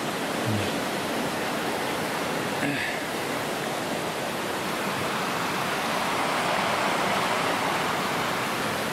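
River water rushing past: a steady, even hiss of flowing water that swells slightly about six seconds in.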